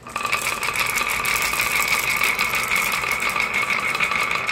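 A long stream of glass marbles rolling down the zig-zag grooves of a wooden wave slope, a dense continuous clatter of rapid clicks with a steady ringing note over it.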